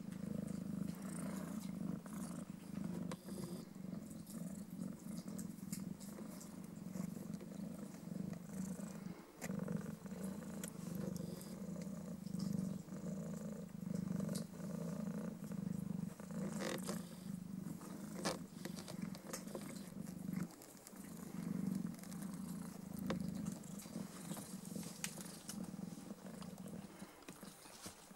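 Domestic cat purring steadily, with two brief pauses and a few soft clicks partway through.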